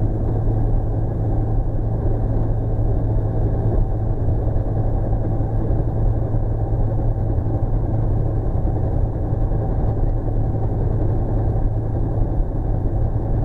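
Bell UH-1 Huey helicopter in flight, heard from inside its cabin: the turbine engine and main rotor make a loud, steady drone with a strong low hum.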